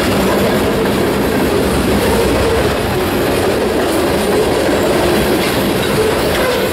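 Freight cars (tank cars, covered hoppers and boxcars) rolling past close by: steady, loud noise of steel wheels running on the rails.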